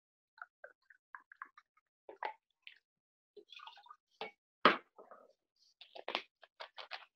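Bar tools and bottles being handled while lime juice is measured and poured into a cocktail shaker: scattered light clicks and clinks, one louder knock about four and a half seconds in, then a quick run of clicks near the end, heard through a video call.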